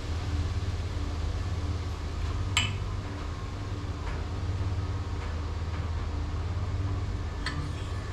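Steady low machine hum with two sharp metallic clinks, the louder one about two and a half seconds in and a fainter one near the end.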